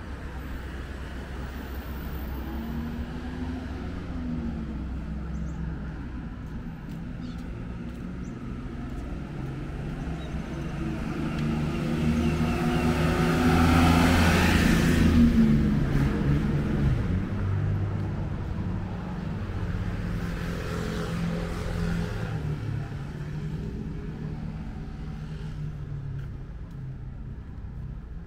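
A motor vehicle passes close by: its engine and road noise grow louder to a peak about halfway through, then fade, with a second, quieter pass a few seconds later over a steady low engine hum.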